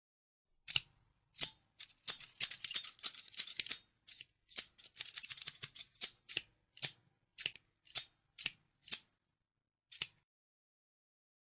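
Scissors snipping: sharp metallic snips, first a couple singly, then rapid runs of quick cuts, then steady single snips about every half second, ending about ten seconds in.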